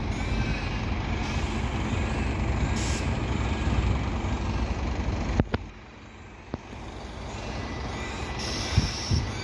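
Engine of a Fire Rescue Victoria bus-type support vehicle running as it moves along the street, a steady low rumble. The level drops suddenly about five and a half seconds in, then builds again, with a short hiss near the end.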